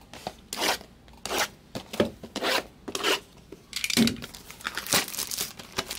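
A sealed Bowman Chrome trading-card box being opened, with its wrapping rasped and torn in a run of short strokes. The strokes grow denser about four seconds in.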